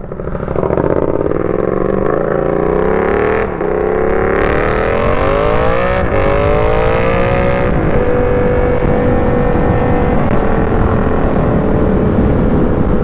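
Yamaha MT-07 parallel-twin through a loud SC Project full exhaust, pulling away and accelerating. The engine note rises and drops back at three upshifts a few seconds apart, then holds steady as the bike cruises in the second half.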